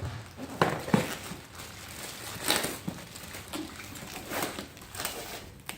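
Packaging being handled: plastic wrap and a cardboard box rustling and crinkling, with a few sharp clicks and knocks at irregular moments.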